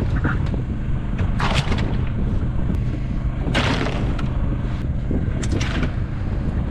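Fishing boat's engine running steadily, a low even hum, with three short rushing noises over it.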